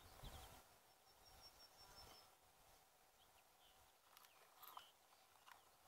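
Near silence: faint open-air ambience with a few faint, high bird-like chirps.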